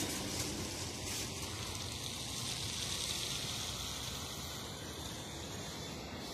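Electric Heuliez GX 337 bus driving away: an even, engineless hiss of tyres and running gear that slowly fades.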